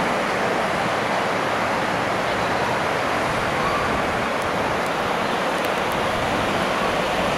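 Steady rushing of turbulent water churning in a canal lock chamber.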